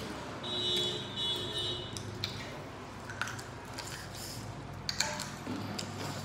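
Close-up eating sounds of people eating with their hands: wet chewing and lip smacks on spiced meat, with soft clicks and crackles of fingers working rice on a banana leaf.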